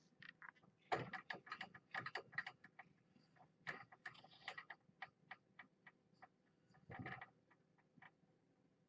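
Irregular, quiet clicks and taps, with louder clusters about a second in and about seven seconds in.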